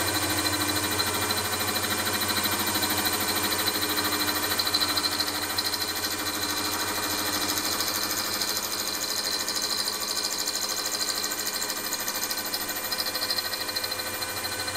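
Milling machine spindle running steadily as an end mill cuts a recess into a cast iron piston, which is turned slowly on a rotary table under the cutter. The motor gives a steady whine, with the scratchy noise of the cut over it.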